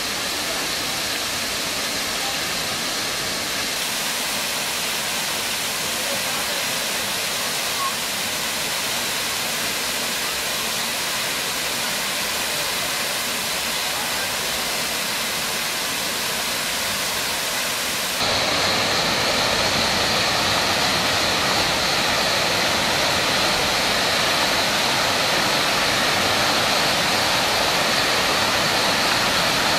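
Waterfall and cascading water rushing in a steady, even roar that grows louder and fuller about two-thirds of the way through.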